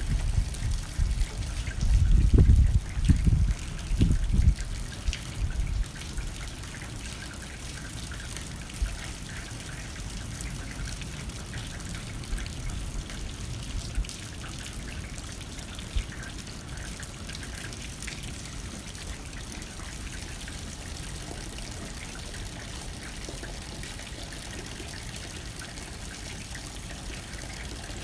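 Rain hitting a window pane with wind blowing: low gusts of wind during the first few seconds, then steady rain with occasional drops tapping on the glass.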